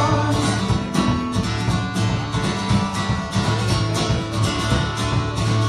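Live acoustic guitar strumming with a drum kit keeping a steady beat: an instrumental stretch between sung lines.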